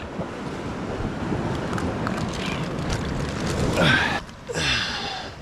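Wind buffeting the microphone in a steady rough rush, with a brief voice-like call about four seconds in and another shortly after.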